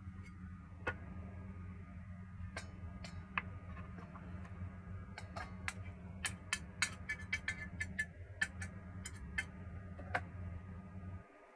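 Metal spoon clinking and scraping against a stainless steel bowl while minced shrimp is moved into it: a run of irregular sharp clicks, thickest in the middle, over a steady low hum.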